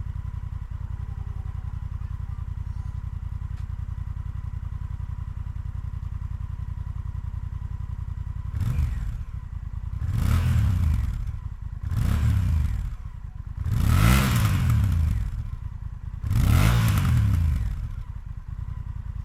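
2022 Honda Rebel 1100's parallel-twin engine through its stock exhaust, warmed up and idling steadily, then blipped five times, the pitch rising and falling with each rev, before settling back to idle.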